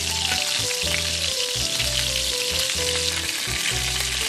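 Chicken thigh frying in butter and its own rendered fat, sizzling steadily as a spoon bastes the hot fat over the meat. Background music plays underneath.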